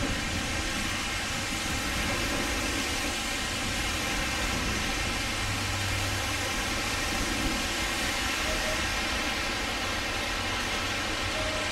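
Steady hiss of a wet city street in falling sleet, with trams rolling slowly over the junction's tracks; a faint short tone rises out of it a couple of times in the second half.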